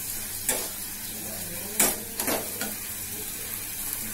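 Spice masala of onion, tomato, ginger and garlic sizzling in a pan, with a spoon stirring it and a few sharp clicks of the spoon against the pan.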